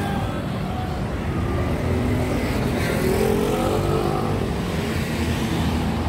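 Steady street traffic noise: a continuous low rumble of cars running past.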